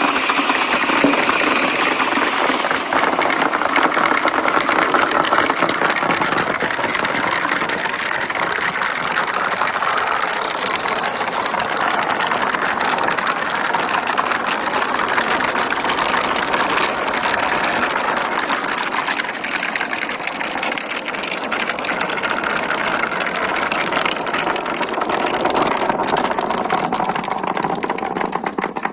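Marbles rolling down a marble run track: a continuous rolling rattle made of many small clicks, easing slightly near the end.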